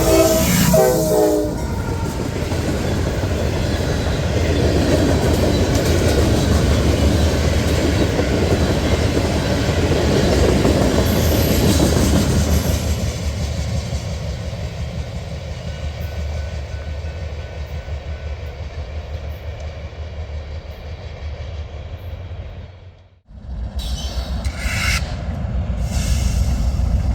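A train horn sounds a chord that stops about a second in, followed by a train rolling past with a steady rumble and wheel noise that slowly fades. The sound cuts off abruptly near the end and another low rumble begins.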